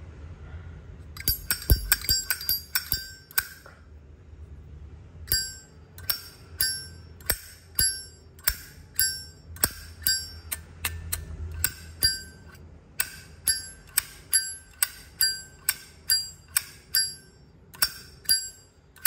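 Brass Zippo lighter being flicked open and snapped shut over and over: a quick flurry of clicks, then a long run of sharp metallic clacks, about one or two a second, each with a bright bell-like ring.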